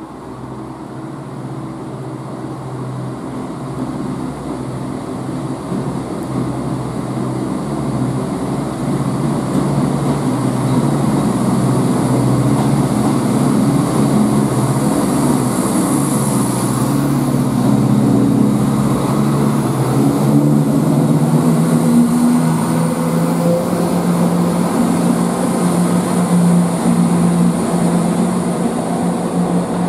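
ScotRail diesel multiple unit, led by a Class 170 Turbostar, running into a station platform. The low drone of its underfloor diesel engines grows steadily louder as the train comes alongside.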